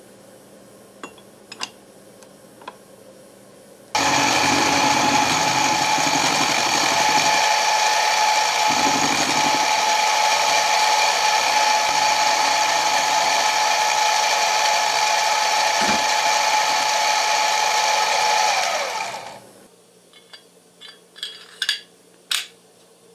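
Bench mini mill running an end mill through a metal bar: a steady whine over the cutting noise, starting abruptly about four seconds in. Near the end the whine falls in pitch as the spindle winds down, followed by a few light metal clicks from handling the parts.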